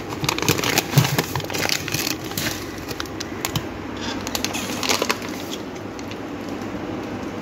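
Plastic food packets crinkling and crackling as a hand rummages through them on a shelf and pulls out a plastic drink-mix pouch. The crackles come thick in the first three seconds and again about five seconds in.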